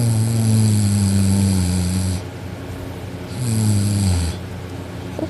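A teenage girl snoring loudly in deep sleep: two snores, a long one of about two seconds and then a shorter one about three and a half seconds in. Each is a low drone that sinks slightly in pitch, with a raspy hiss over it.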